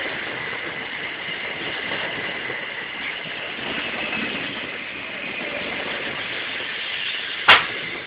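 London Midland Class 350 electric multiple unit moving past along the platform: a steady rumble and hiss of wheels and running gear with a faint high whine. A single sharp click about seven and a half seconds in.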